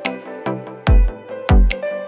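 Electronic background music with a steady, heavy kick-drum beat under sustained synth chords.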